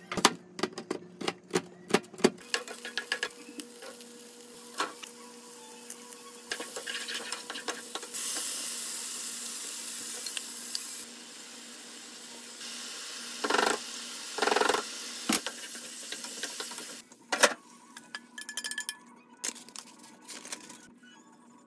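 Frying pan sizzling while shell pasta, sausage and onion are stirred and scraped with a wooden spatula and chopsticks. There is a rapid run of knife and utensil clicks at the start, and two loud scrapes about halfway through.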